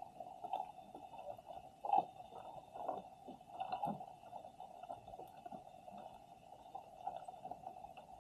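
Muffled underwater sound picked up by a submerged action camera on the sea floor: a constant dull hum with irregular soft knocks and crackles, the loudest about two seconds in.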